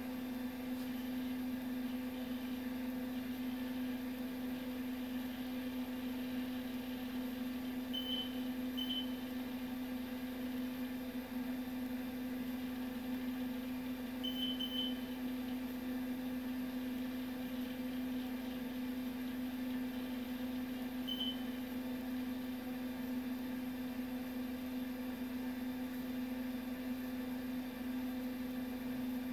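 Data General MV/3200 minicomputer running with a steady low hum while AOS/VS II boots, with a few short high beeps: two about eight and nine seconds in, a quick cluster around fourteen seconds, and one more near twenty-one seconds.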